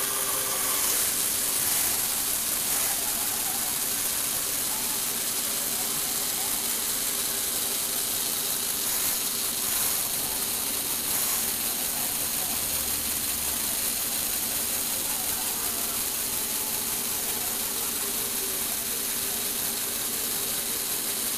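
Small electric motor driving plastic Lego Technic gears and a turntable: a steady mechanical whir with an even hum and a high hiss.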